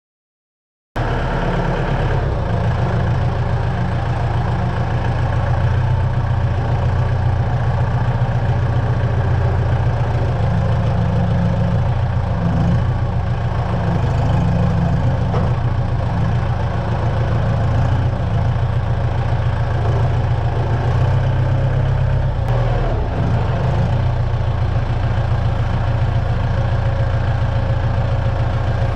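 An engine idling steadily, its low, even running note cutting in about a second in.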